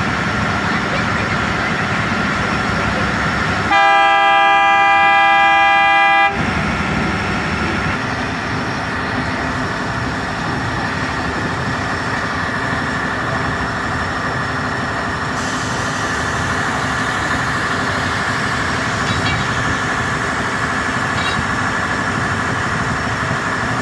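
Track-laying machine running steadily, its engine and gear making a constant drone, with a loud horn blast lasting about two and a half seconds a few seconds in.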